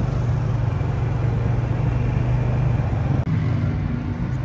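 A car driving: a steady low engine and road hum, with a brief dip about three seconds in.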